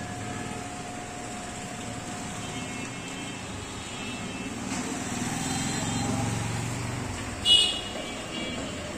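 Road traffic in the background, with a vehicle's engine rumble swelling through the middle. About seven and a half seconds in there is a short, sharp, high horn toot.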